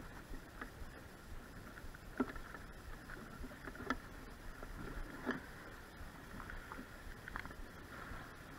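A few short, faint taps and clicks from a walleye being worked free of a landing net and unhooked, over a low steady background rumble.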